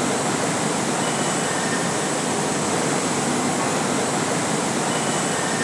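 Steady, even rushing noise of factory-floor machinery and ventilation in a cheese plant, with a faint high whine over it.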